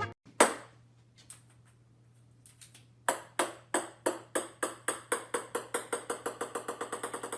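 A single ringing ping, then a run of identical ringing pings that speeds up from about three a second to about eight a second, over a low steady hum.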